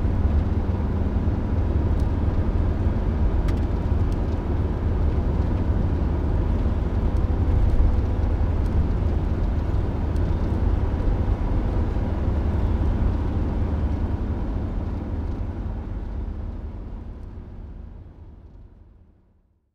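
Steady low rumbling background noise with a faint hum, fading out to silence over the last few seconds.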